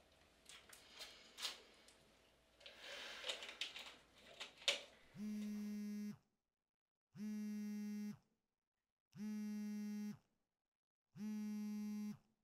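Light rustling and a few sharp clicks of objects being handled. Then a smartphone buzzes four times for an incoming call, each buzz about a second long and about two seconds apart.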